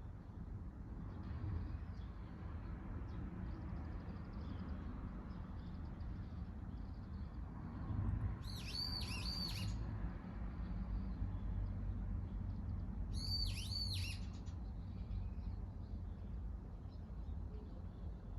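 A wild bird calling twice, about four seconds apart: each time a short run of high, looping notes, over a steady low rumble.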